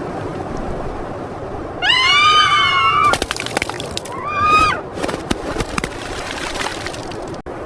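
An animal calling twice over a steady rushing background: a long cry that rises and then holds, then a shorter one about two seconds later. A few sharp clicks fall between and after the calls.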